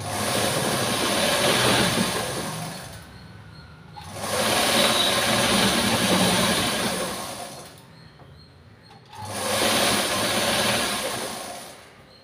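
Black straight-stitch sewing machine running a seam through cloth in three runs of about three to four seconds each, each one building up and then slowing off, with short pauses between them.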